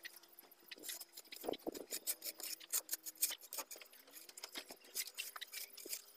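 Small trowel scraping and tapping on wet cement mortar as it is smoothed: a run of irregular, quick scratchy clicks.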